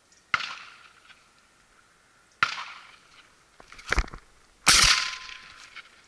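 Three shotgun shots about two seconds apart, each a sharp report with a decaying tail; the last is the loudest and rings longest. A quick cluster of knocks comes just before the last shot.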